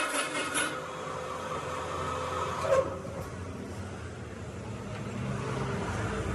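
A low, steady engine-like hum that grows slightly louder toward the end, with a high hiss that fades out just after the start and a brief knock near the middle.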